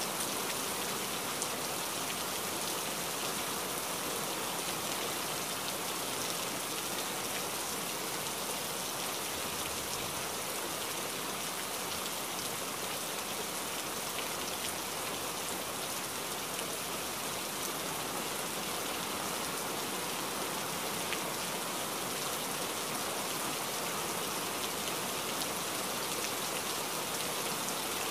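Steady rain falling, an even hiss of many drops with no let-up.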